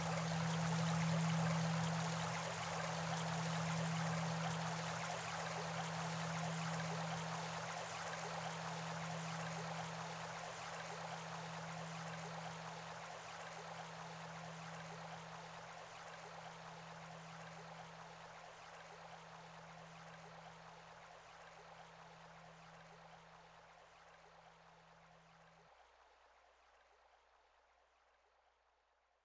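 Steady rushing noise, like flowing water, with a low hum pulsing slowly beneath it. It fades gradually to silence, and the hum drops out shortly before the end.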